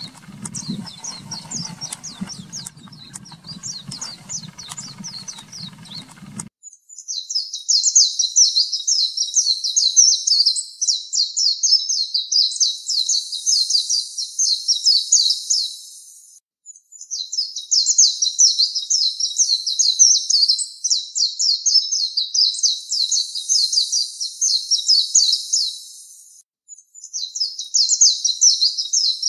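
Oriental white-eye singing: long, fast, high-pitched twittering phrases several seconds each, broken by short pauses. For the first six seconds the song is fainter, with scattered chirps over a low hum, then it cuts abruptly to a clean, loud recording.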